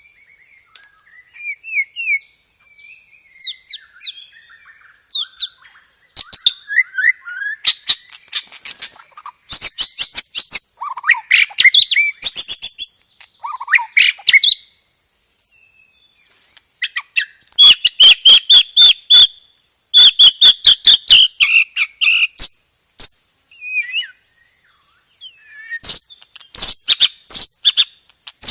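White-rumped shama (murai batu) singing a loud, varied song: short whistled phrases broken by several runs of very rapid, rattling rolls. A steady high-pitched whine runs underneath.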